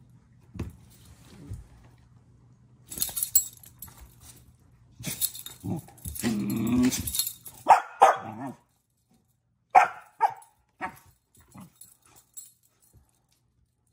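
A dog pawing and scuffling at a treat on a wooden floor, a low vocal sound about halfway through, then a run of short barks.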